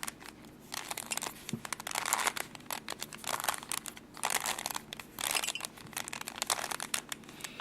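Rubik's Cube layers being twisted rapidly by hand: plastic clicking and rattling in a string of short bursts with brief pauses between.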